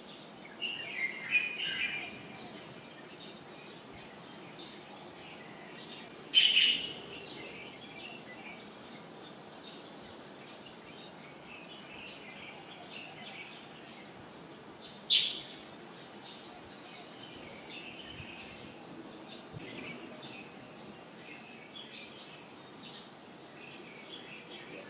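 Birds chirping: many short calls throughout, with louder ones about a second in, around six seconds and around fifteen seconds, over a steady background hum.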